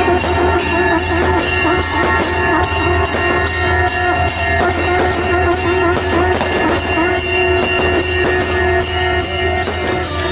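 Instrumental background music with a steady, jingling percussion beat over held notes.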